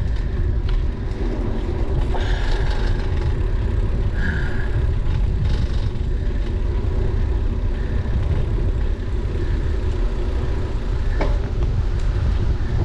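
Steady low rumble of wind buffeting a bicycle-mounted action camera's microphone while riding, with road and bike noise underneath. There are a couple of short higher tones a few seconds in, and a sharp click near the end.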